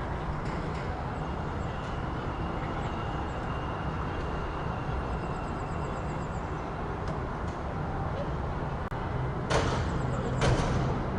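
City street traffic ambience: a steady rumble and hiss of passing vehicles. Near the end come two short, loud hisses about a second apart, with an engine hum growing beneath them.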